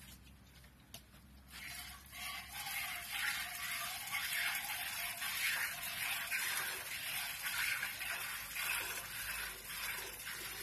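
Hand milking: repeated spurts of milk hissing into a metal bucket, starting about two seconds in.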